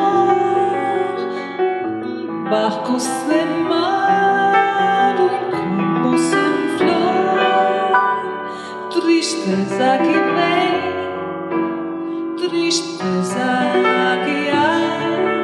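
Piano playing with a woman's voice singing long, gliding notes.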